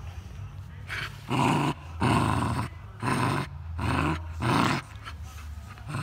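Dog growling in about five short, rough growls in quick succession.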